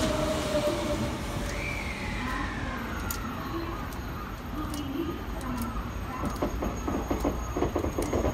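JR West Special Rapid Service electric train pulling away from the platform: low running rumble with its traction motor whine gliding in pitch, then a quick run of wheel clacks over the rails near the end as it picks up speed.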